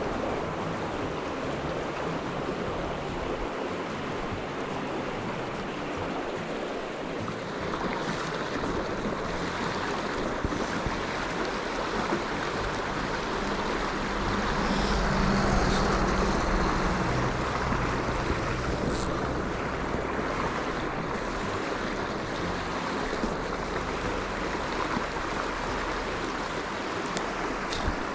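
Mountain creek water rushing over rocks, a steady noise that swells a little about halfway through.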